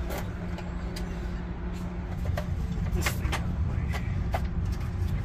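A low, steady rumble with a faint steady hum, and scattered light clicks and taps.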